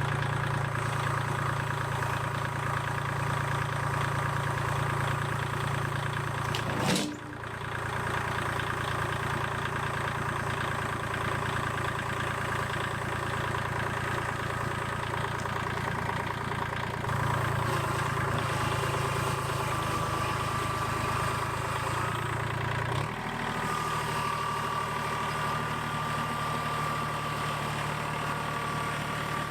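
An engine idling steadily. A short, sharp noise about seven seconds in, and the engine's low hum drops a little later on.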